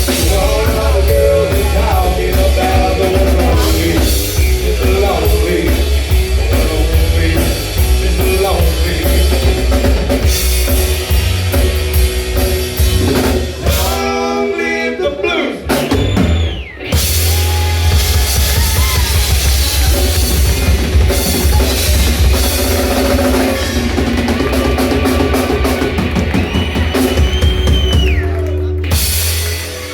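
Rock music played by a band, a drum kit keeping the beat under pitched instrument lines. The full sound thins out for a moment about halfway through, then comes back in.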